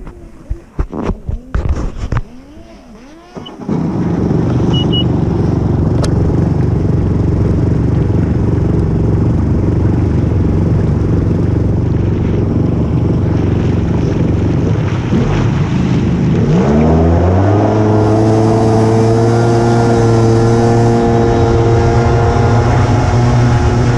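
A few knocks and clicks, then a jet ski engine starts about three and a half seconds in and runs steadily. About two-thirds through it revs up with a rising pitch and holds at a higher speed as the craft gets under way.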